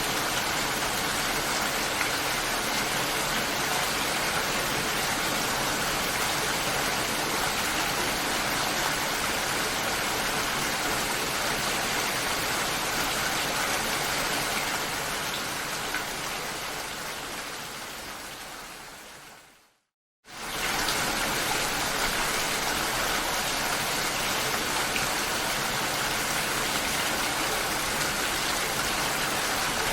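Steady heavy rain as an even hiss. About two-thirds of the way through it fades away over several seconds to a moment of silence, then cuts straight back in at full strength.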